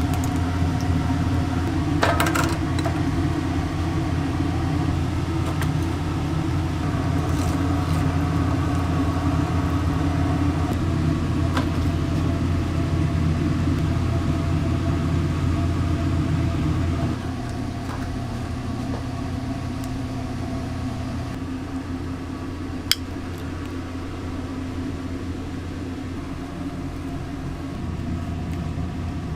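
Steady low mechanical hum that drops in level about two-thirds of the way through, with a few faint clicks and one sharp click near the end.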